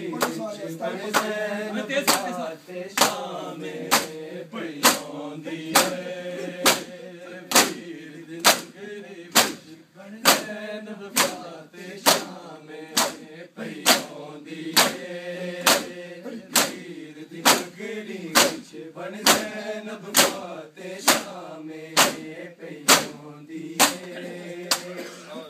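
Men chanting a noha (mourning lament) in unison, with the group's matam chest-beating landing as one sharp slap on the beat about once a second.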